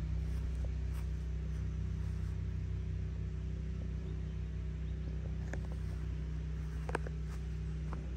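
Kawasaki Ninja 400's 399 cc parallel-twin engine idling steadily, with a few light clicks in the second half.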